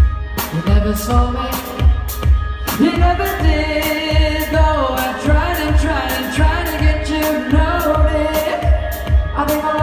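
A pop-rock band playing live, with a steady kick-drum beat. A voice comes in singing about three seconds in.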